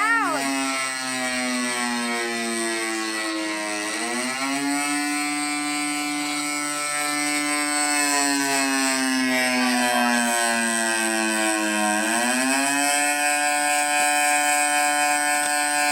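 Siren sounding the attack signal: a loud wailing tone that climbs quickly, then sinks slowly for about seven seconds, and climbs again, with the rises about eight seconds apart.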